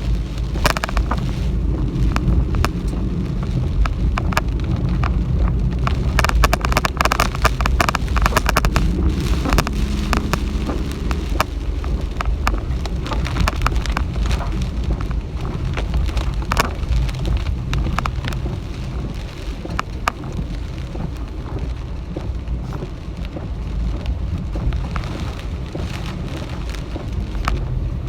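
Heavy typhoon rain, Typhoon Hagibis, pelting a car as a dense, irregular patter over a constant low rumble of wind and road noise, heard from inside the cabin. The patter is thickest a few seconds in.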